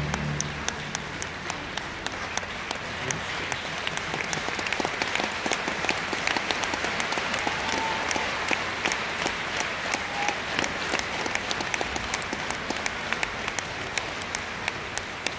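Arena audience applauding, many hands clapping in a dense, steady patter. The last chord of the performance music dies away just at the start.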